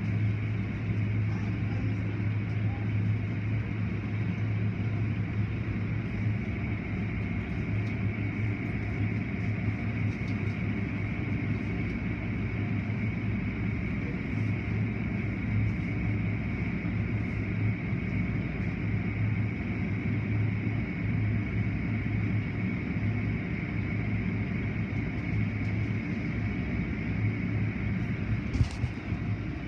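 Automatic tunnel car wash heard from inside the car: a steady low machinery hum under water spray and cloth wash strips brushing and slapping over the body and glass. A single sharp knock near the end.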